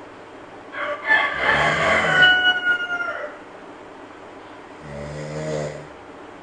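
A sleeping monkey snoring, with one snore near the end. About a second in comes the loudest sound: a call of about two seconds whose pitch falls slightly.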